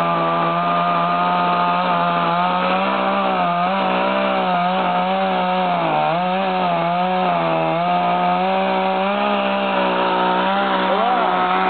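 Chainsaw running hard while cutting through the trunk of a fallen tree. Its engine pitch sags several times as the chain bites into the wood, most deeply about halfway through.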